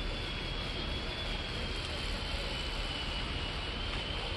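Steady wind noise on the microphone, with a faint, thin high whine that drifts slightly in pitch.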